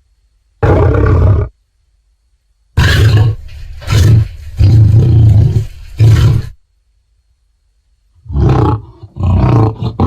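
Creature roar sound effects, cut apart by silences: one short roar about half a second in, a run of several roars and growls from about three seconds to six, and a quick series of short roars near the end.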